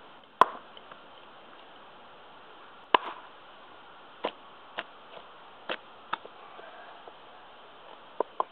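Prandi Yankee small axe chopping into a knotty piece of beechwood on a chopping block: about eight sharp, separate strikes at irregular spacing. The first two are the loudest, and two quick strikes come close together near the end.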